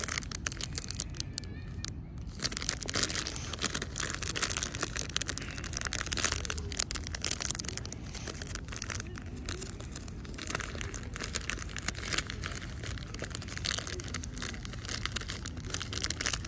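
Plastic or foil food packaging being crinkled and handled: a continuous crackle of many small clicks, over a steady low rumble.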